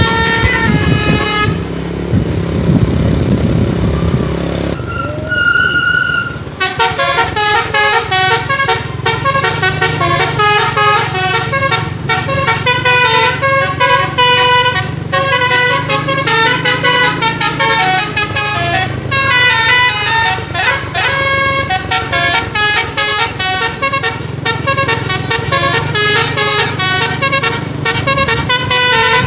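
Bus telolet musical air horn playing quick melodies of many short notes, with one long held note about five seconds in, over the low hum of the bus engine. For a few seconds near the start the notes stop and only a noisy rush is heard.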